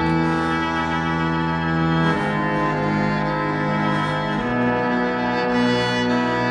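Slow instrumental music of long, held chords that change about every two seconds.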